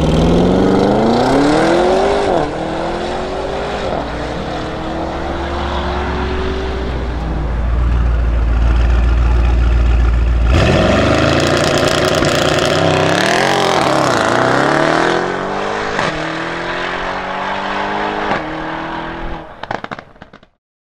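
An Audi RS6 Avant's twin-turbo V8 accelerates hard away, rising in pitch through two upshifts. After a cut about ten seconds in, a Mercedes-AMG E63's twin-turbo V8 accelerates away through several quick upshifts and fades out near the end.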